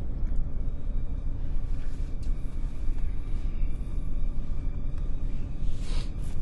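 Deep, steady low rumble.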